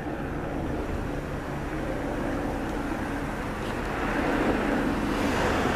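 Helicopter flying overhead: a steady engine and rotor noise that grows louder from about four seconds in as it passes closer.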